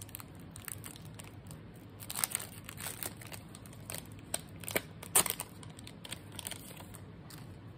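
Foil Pokémon card booster-pack wrapper being torn open and crinkled in the hands: irregular crackles and rustles, with sharper crinkles about two and five seconds in.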